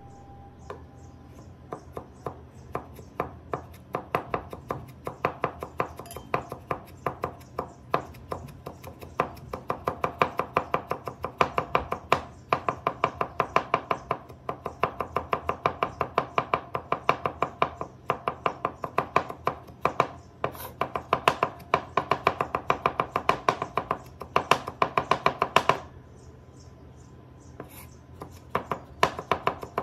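A cleaver is rapidly mincing ginger on a wooden cutting board, several quick strokes a second, each with a short ringing note. The strokes start slowly, become a fast steady run, stop briefly near the end and then pick up again.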